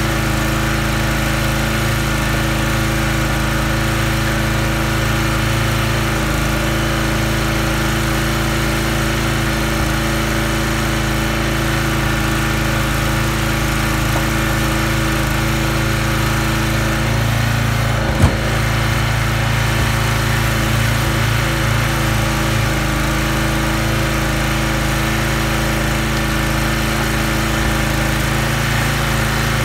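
Huskee gas-powered log splitter's small engine running steadily. About two-thirds of the way through, a single sharp knock stands out as the loudest moment.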